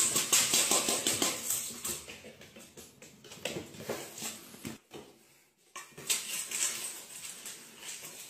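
Steel bowl of dry cat food set down and pushed across a tiled floor, kibble rattling and metal scraping on tile. It comes as dense, rapid clicking and scraping in two runs, with a pause of about a second near the middle.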